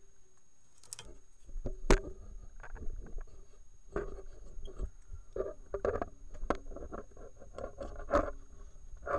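Scattered knocks, clicks and scrapes of objects being handled on a workbench, the sharpest knock about two seconds in.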